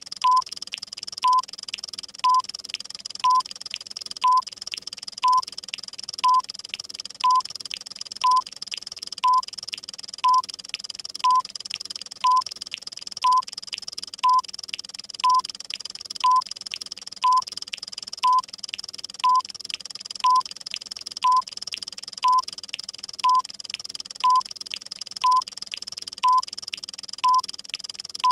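Countdown timer sound effect: a short, high electronic beep about once a second over very rapid clock ticking, with a steady high hiss underneath.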